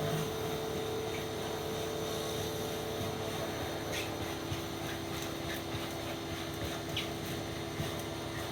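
Pressure washer running steadily: a constant motor hum under the hiss of the spray, the hum dropping slightly in pitch about two and a half seconds in.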